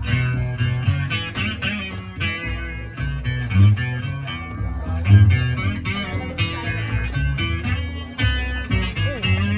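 Live guitar instrumental break in a country song, with quick plucked notes over a steady low bass end and no singing.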